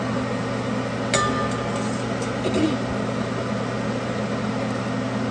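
Steady mechanical hum over the quiet bubbling of snack chips deep-frying in a steel pot of oil, with a sharp metal clink about a second in as a slotted spoon knocks the pot.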